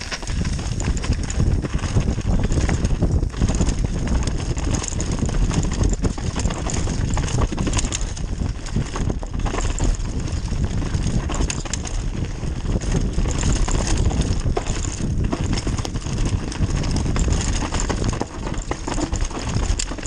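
Mountain bike ridden fast down a rough dirt trail, heard through a GoPro mounted on the bike: a constant clatter and rattle over roots and bumps, with tyre rumble and many small knocks.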